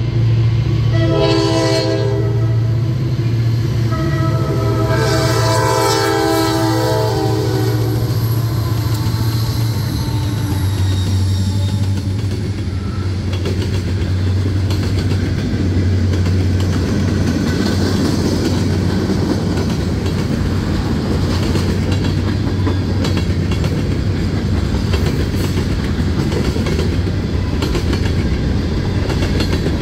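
Diesel freight locomotive's air horn sounding a short blast about a second in, then a long blast from about four to eight seconds, over the engine's steady low drone. The freight cars then roll past with a continuous rumble and rapid clickety-clack of wheels on the rails.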